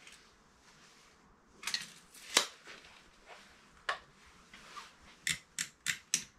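Clicks and knocks of hands handling tools on a wooden workbench, the router not yet running: a few taps, one sharp click about two and a half seconds in, then four quick sharp clicks near the end as hands go to the router.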